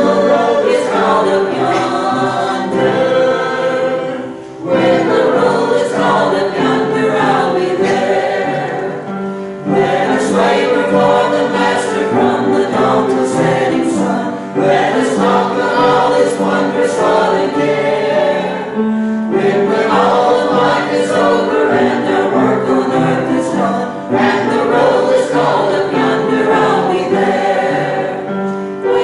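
Small church choir singing a hymn together in sung phrases about five seconds long, each phrase followed by a short pause for breath.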